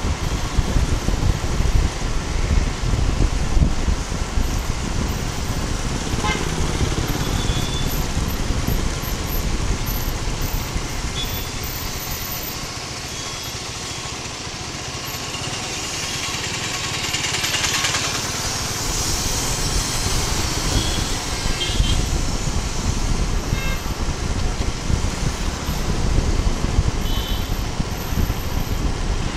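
Suzuki Gixxer SF 250's single-cylinder engine running under way, with wind rushing over the microphone as the bike rides through town traffic. The noise eases off in the middle as the bike slows at a junction, then builds again as it pulls away.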